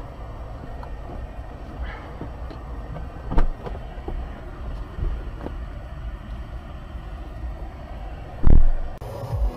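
Steady low rumble of vehicles heard from inside a stationary car's cabin, with a few light knocks and one loud, dull thump near the end.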